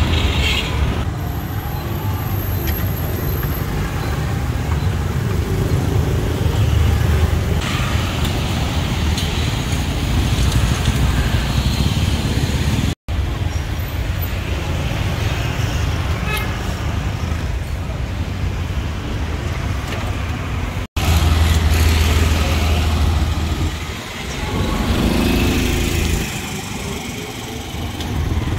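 Busy street traffic: the steady rumble of passing vehicle engines, with a horn toot and voices mixed in. The sound cuts out for an instant twice.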